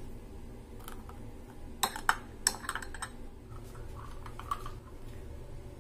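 Metal spoon clicking against a glass coffee mug: a few light, quick taps, most of them bunched about two to three seconds in, then one faint tap later.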